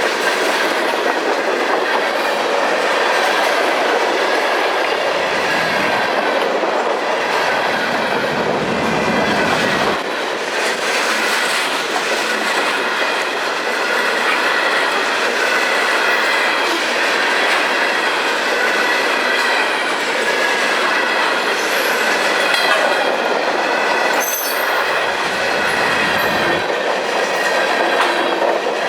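Freight cars of a passing train rolling through a grade crossing: wheels clicking over the rail joints, with a thin squeal of steel wheels on the rail. A deeper rumble swells twice, about five seconds in and again near the end.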